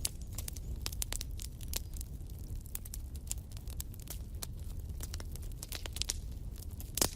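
Wood fire burning in a fireplace, a steady low rumble under frequent irregular crackles and pops, with one louder pop near the end.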